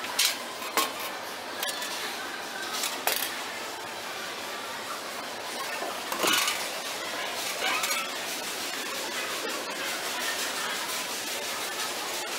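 Steady background noise of a busy store, with a few light clicks and clinks in the first few seconds and a louder metallic clink about six seconds in.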